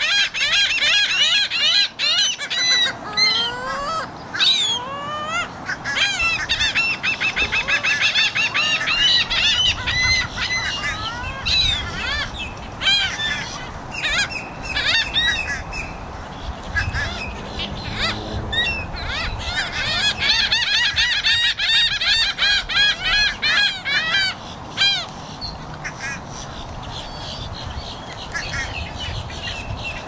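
Flock of laughing gulls calling: many harsh, overlapping calls in quick series, with a few long rising calls a few seconds in. The calling thins out over the last few seconds.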